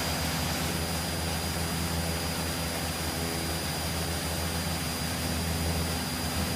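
Cessna 172's piston engine and propeller droning steadily in flight, heard inside the cabin, with a faint steady high whine above it.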